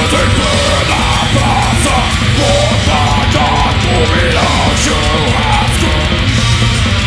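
Heavy metal band playing live: drums and distorted electric guitar, loud and dense, with a shouted vocal line in Portuguese that stops about five and a half seconds in.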